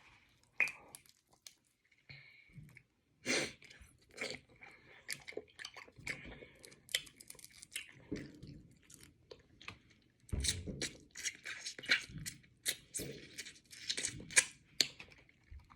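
Close-up chewing and crunching of crab kickers: irregular crisp crunches and wet mouth clicks, growing louder and busier from about ten seconds in.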